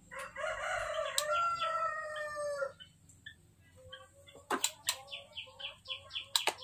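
A rooster crows once, one long call lasting about two and a half seconds that falls slightly at the end. Afterwards small birds chirp quickly and repeatedly, with two sharp clicks a couple of seconds apart.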